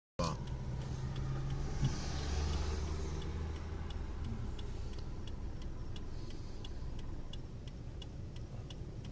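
A car's turn-signal indicator clicking steadily, about two clicks a second, heard inside the cabin over the low rumble of the idling car and road traffic, which is louder in the first few seconds.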